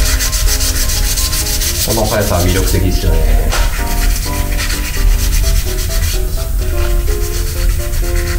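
Sandpaper on a hand sanding pad rubbed quickly back and forth over cured UV primer-surfacer on a car body panel, a continuous scratchy rasp, flattening the surfacer. Quiet background music runs underneath.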